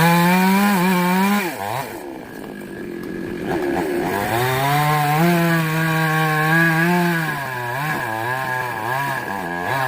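Two-stroke chainsaw running at high revs. About a second and a half in, its pitch sags and turns rough for a couple of seconds as it bogs down cutting wood, then it revs back up and holds steady. Near the end the pitch wavers up and down with throttle changes.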